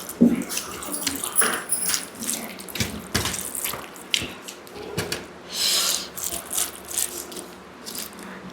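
Close-miked eating sounds: irregular wet smacks, clicks and slurps of chewing dal with rice and dahi vada.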